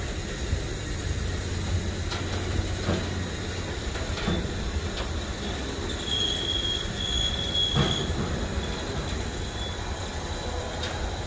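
An old car being loaded up the steel ramps of a car trailer: a steady low rumble, a high metallic squeal from about six to eight seconds in, and a few sharp knocks and clanks.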